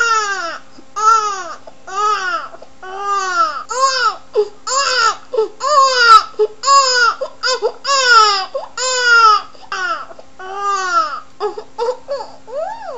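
Baby crying: a steady string of wailing cries that rise and fall in pitch, about one a second, turning shorter and more broken near the end, over a faint steady hum.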